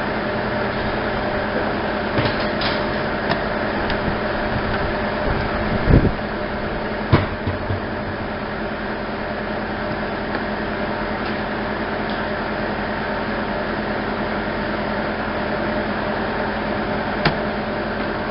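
A steady mechanical hum runs throughout. Over it come scattered metallic clicks, and two louder knocks about six and seven seconds in, as needle-nose vise grips work the broken latch linkage of a minivan's rear hatch to pull it open.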